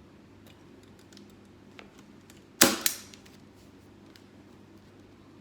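Staple gun fired once about two and a half seconds in, a sharp crack followed quickly by a smaller second snap, driving a staple through plastic sheeting into a crate seat. A few faint ticks come before it.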